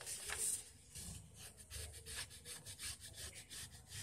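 A sheet of paper being folded and creased by hand. Fingers press and rub along the fold in a run of short scrapes, loudest in the first half second.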